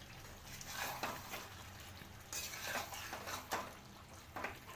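A cooking spoon stirring and scraping against a pot of thick chicken masala, in a few irregular strokes, mixing in the fried eggs so the masala coats them.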